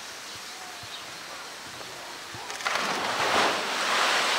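Polar bear diving into a pool: a big, loud splash of water begins about two-thirds of the way in and carries on to the end, after a quiet start.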